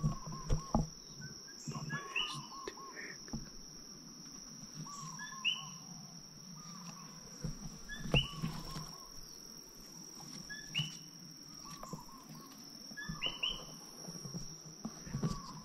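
Insects trilling steadily on one high note, while a bird repeats the same short chirping phrase every few seconds, with faint rustling of vegetation now and then.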